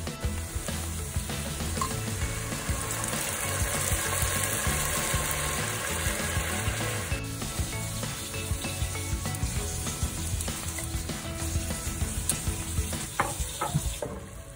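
Chicken, onion and mushrooms sizzling in a hot frying pan. The sizzle grows strongest a few seconds in, as liquid goes into the pan, then settles to a softer bubbling. A few light knocks come near the end.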